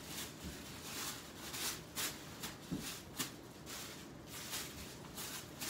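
Tissue paper rustling and crinkling as it is handled and folded, in a string of irregular short rustles.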